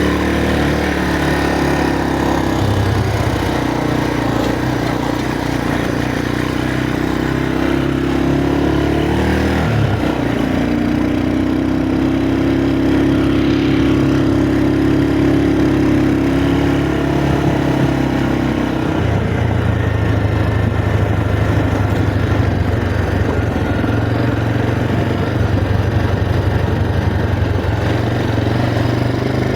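Motorcycle engine running under load on a rough off-road climb. Its pitch dips and recovers about ten seconds in and changes again a few seconds before twenty as the rider varies speed.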